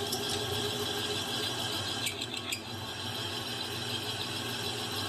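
Metal lathe running while a drill bit drills out the solid center of a Smart car's front hub: a steady machine hum with the scraping of the cut, and a short cluster of light clicks about two seconds in.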